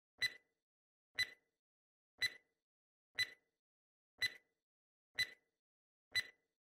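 Quiz countdown timer's clock-tick sound effect: one short, sharp tick each second, seven ticks in all, with nothing between them.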